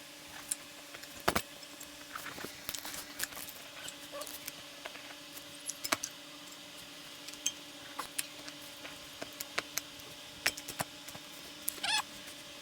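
Scattered light clicks, taps and small rattles of tools and bike parts being handled, with a brief quick clatter near the end, over a faint steady hum.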